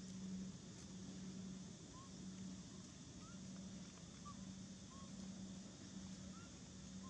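Faint outdoor background: a low hum that swells and fades about once a second under a steady hiss, with a handful of short, faint rising chirps.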